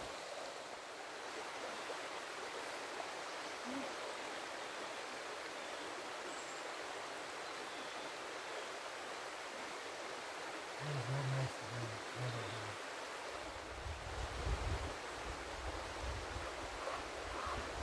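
Shallow river running over rocks, a steady rush of water. Low rumbles start about eleven seconds in and continue through the second half.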